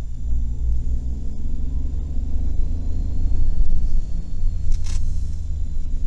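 Car engine and tyre rumble heard from inside the cabin while driving on a wet road, with a brief hiss about five seconds in.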